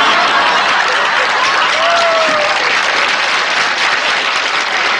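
Studio audience applauding steadily right after a sitcom punchline.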